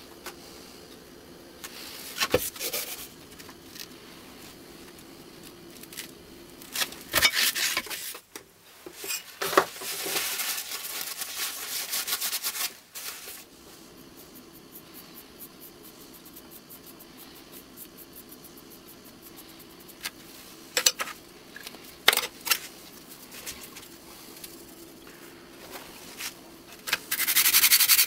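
Intermittent handling of a steel plane part on abrasive paper over a granite slab: short scrapes and clicks, and a few seconds of steady rubbing about ten seconds in. Near the end, steady sanding starts up as the metal is rubbed flat on the abrasive paper.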